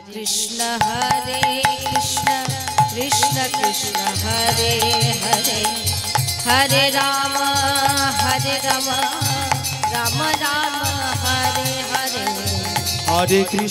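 Kirtan music: a woman singing a wavering devotional melody over a harmonium's held notes, with small brass hand cymbals and a hand drum keeping time.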